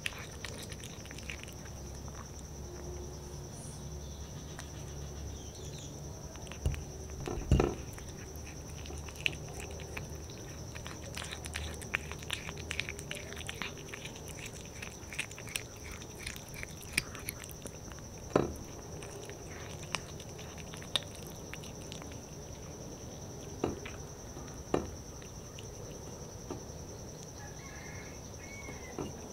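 A calico cat chewing the last scraps of raw meat and licking a ceramic plate clean, heard close up as wet smacking and lapping clicks. A few louder knocks come against the plate, the first about seven seconds in.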